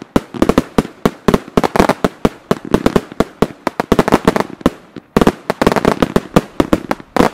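Fireworks batteries firing in quick succession: sharp cracking reports of shots and bursting stars, several a second, with a brief lull about five seconds in.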